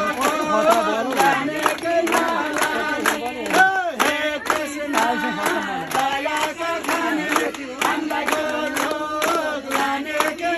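Many voices chanting and singing together in a crowd, over a steady beat of sharp strikes about three a second.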